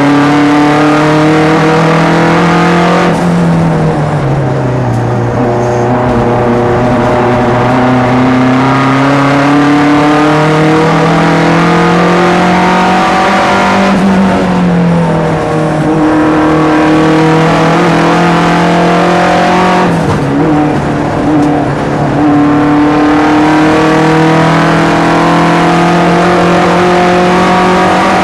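Turbocharged four-cylinder engine of a SAAB 900 race car running hard, heard from inside the cabin: the revs drop about three seconds in, climb steadily through the gear, fall with a gear change around halfway and dip again about two-thirds through, with road and wind noise underneath.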